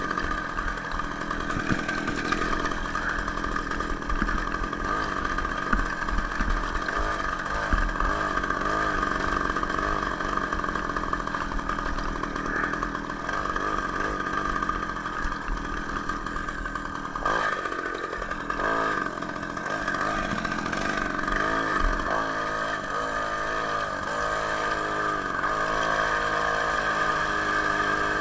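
Ural chainsaw's two-stroke engine driving a homemade moped, running hard under load on a hill climb, its pitch dipping and rising as the revs change.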